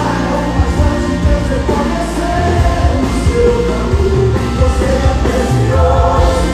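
Live band performance of a Brazilian gospel song: male vocals over electric bass, guitars and a steady beat, amplified through the stage PA in a concert hall.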